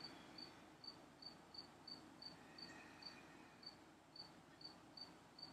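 Faint cricket chirping: short high chirps repeating about two and a half times a second, over faint room tone.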